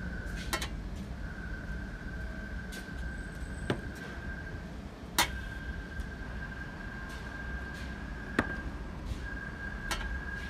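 Glass yogurt jars set down on and lifted off a steel scale platter and a table: five sharp clicks and clinks, the loudest about halfway through. Under them runs a steady high-pitched whine that breaks off briefly a few times, and a low rumble.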